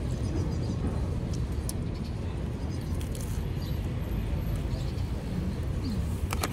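Outdoor city street ambience: a steady low rumble of traffic with wind buffeting the microphone.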